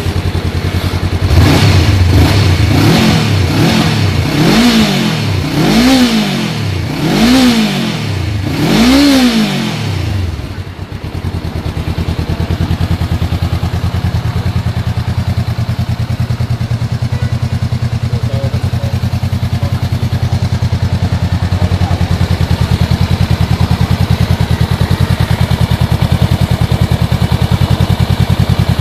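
Honda CBR500R's parallel-twin engine, in neutral, revved in a series of quick throttle blips over the first ten seconds or so, each rising and falling back, then settling to a steady idle for the rest.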